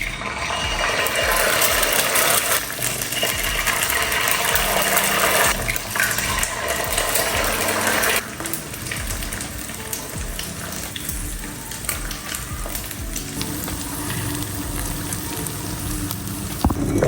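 Food frying in hot tallow in a pan, a steady sizzle that drops suddenly to a quieter level about eight seconds in.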